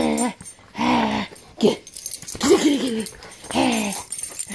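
Dog growling and whining in play while tugging on a toy, about five short calls that rise and fall in pitch.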